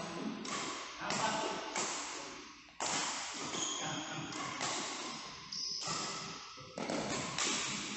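Badminton rackets striking a shuttlecock in a rally: sharp hits about once a second, each echoing in a large hall, with short high squeaks of shoes on the court floor.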